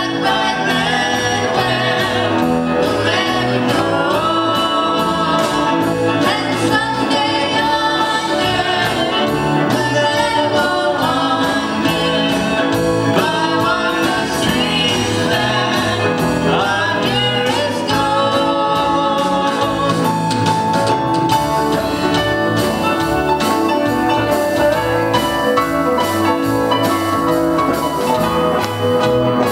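Live gospel hymn: a young girl sings lead over a small church band with acoustic guitar. About two-thirds of the way through, the singing gives way to the band playing on, with cymbals.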